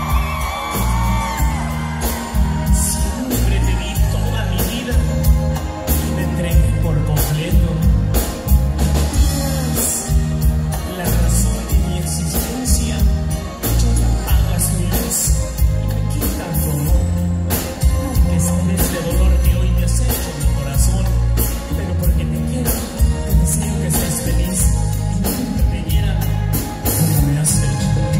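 Live grupera band playing a song: a singer over a bass-heavy mix with steady drum beats.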